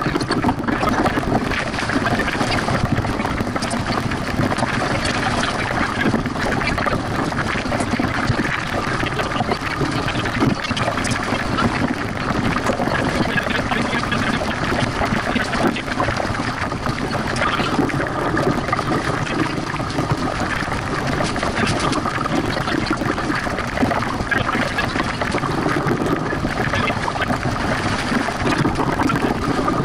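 Wind and water rushing past a small sailboat's hull, heard on an onboard camera and sped up eight times, giving a dense, steady, flickering hiss.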